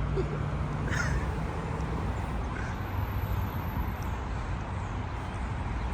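Steady low rumble of traffic, with a short high call about a second in.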